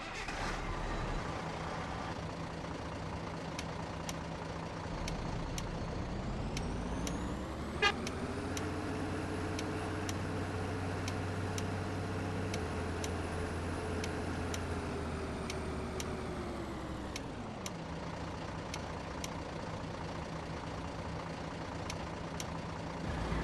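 Large bus diesel engine idling, then revved up over about two seconds, held at higher revs for about eight seconds, and let fall back to idle. There is a single short sharp sound just after the revs rise.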